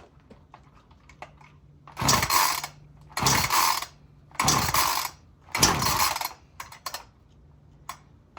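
Ryobi RY3716 two-stroke chainsaw being pull-started cold on choke: four pulls of the recoil starter cord, each about half a second long and a little over a second apart.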